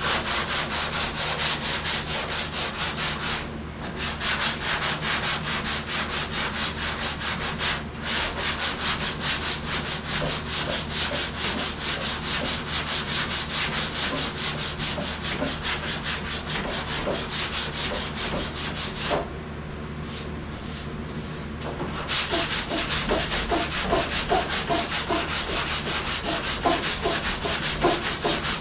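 Hand sanding of a vehicle body panel with sandpaper: rapid back-and-forth rubbing strokes, briefly stopping about 3.5 and 8 seconds in and pausing for a few seconds past the two-thirds mark before starting up again.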